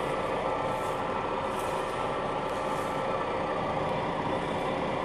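Combine harvester engine running steadily, a constant hum with several held tones and no change in speed.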